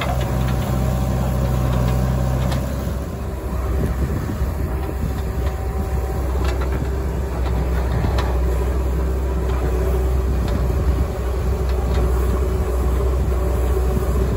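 JCB 3DX backhoe loader's diesel engine running under load while the backhoe arm digs soil and swings. It makes a steady low drone with a whining tone above it.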